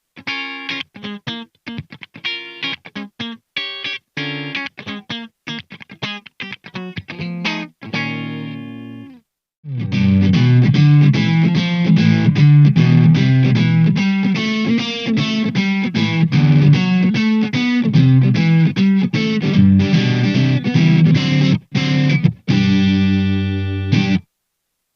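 Tokai TST-50 Strat-style electric guitar with single-coil pickups. For the first nine seconds it plays short, separated clean picked notes. After a brief pause it switches to overdriven, distorted playing with dense sustained chords and riffs, which stops abruptly near the end.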